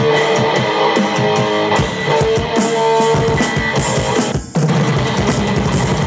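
Heavy-metal jam of distorted electric guitar over an electronic drum kit, the drummer hitting rapid strokes under held guitar notes. The sound briefly drops out about four and a half seconds in.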